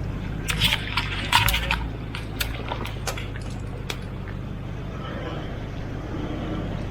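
A 4WD's engine running steadily at low revs while it drives through creek water, with sloshing and a run of sharp splashes and knocks in the first four seconds.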